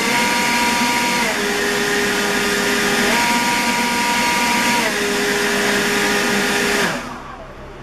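Atlas 80V brushless cordless leaf blower running on its low setting as turbo is pressed, a steady rush of air with a motor whine. The whine steps up in pitch while turbo is held and drops back twice, about a second and a half in and again about five seconds in. The blower shuts off about seven seconds in.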